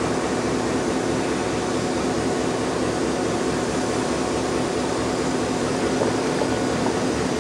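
Passenger train cars from VIA/CN alongside, giving a steady mechanical hum and whir with one low steady tone underneath.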